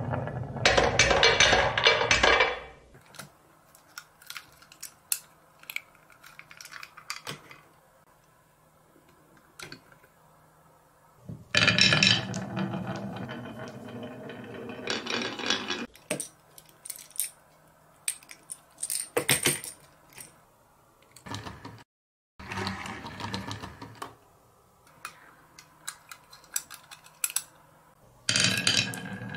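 Glass marbles rolling and clacking down a carved wooden wave track, in several bursts a few seconds long, with small clicks and taps of die-cast toy trucks being handled between them.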